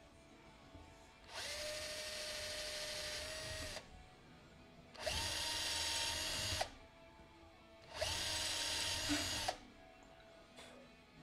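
Electric drill boring out the holes of an aluminium motor mount to M3, run in three short bursts of about two seconds each. Its motor whine sits a little lower in the first burst than in the second and third.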